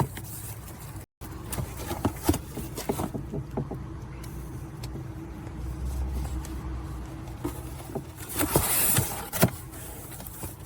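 A large cardboard shipping box being handled and opened: a few sharp knocks and scrapes, then a burst of rustling about three-quarters of the way through, over a low steady hum.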